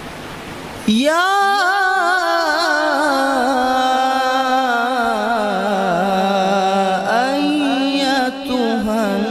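Solo male qari reciting the Quran in the melodic tajweed style, amplified through stage microphones. His voice comes in about a second in and holds one long phrase with ornamented, wavering pitch, with a short break for breath near the end.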